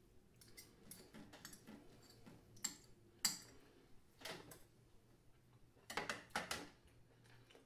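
Knife and fork clinking and tapping faintly against a small bowl as food is cut and eaten, in a dozen or so scattered light clicks, with a short cluster of them near the end.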